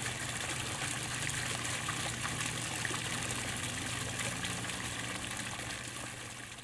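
Steady trickling of running water at a garden pond, over a steady low hum, fading out near the end.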